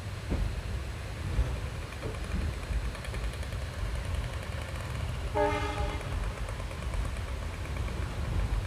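Passenger train running, heard from on board: a steady low rumble, with one short locomotive horn blast of about half a second a little past the middle.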